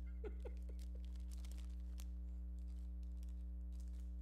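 Steady low electrical hum on the audio feed, with a few faint crinkles of a foil trading-card pack wrapper being handled.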